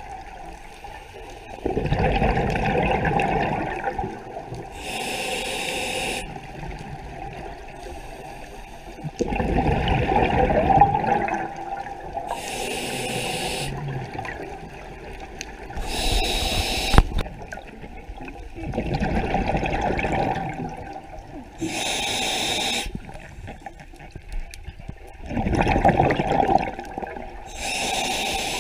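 Scuba diver breathing through a regulator underwater. Long, bubbling rumbles of exhaled air alternate with shorter hissing inhalations through the demand valve, one breath every six seconds or so.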